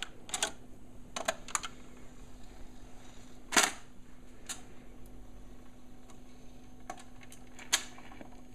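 Clicks and clunks from an HMV 2011 record player's autochanger mechanism and tonearm as it cycles to drop and play a single, with one louder thump about three and a half seconds in, over a steady faint hum.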